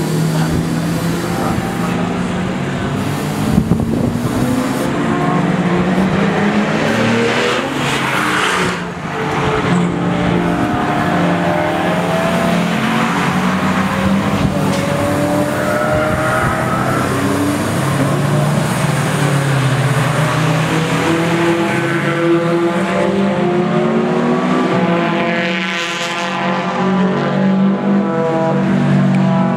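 Cars lapping a road-racing circuit, several engines running hard and overlapping as they accelerate and shift through the corners. One car passes close about 26 seconds in.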